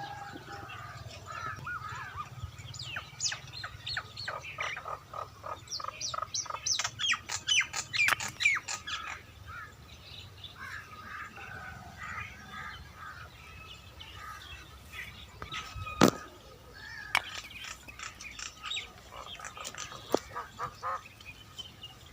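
Birds chirping and calling in quick runs of short notes, busiest in the first half. A single sharp knock stands out about two-thirds of the way through.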